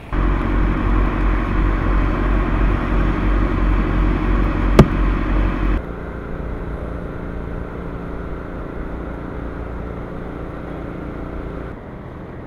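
A motor running steadily with a low hum, with one sharp click about five seconds in; the sound drops in level abruptly twice.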